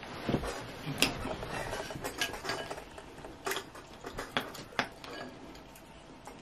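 A wooden spoon and a plastic fork clinking against a glass bowl as ramen noodles are stirred and picked through in broth, with about half a dozen sharp knocks spread over the few seconds.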